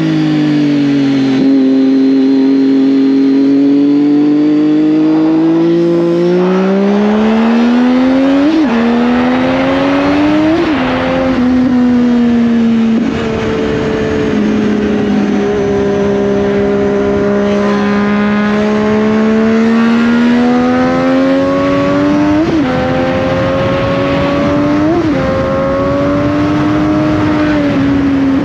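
Triumph Daytona 675 inline three-cylinder engine at cruising speed, its revs sinking and climbing slowly with the throttle. Four brief sharp rev blips cut in, two in the first half and two in the second.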